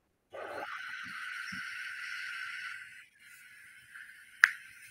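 A sudden steady hiss of noise, mostly high in pitch, that lasts about two and a half seconds and then drops to a fainter hiss, with one sharp click near the end.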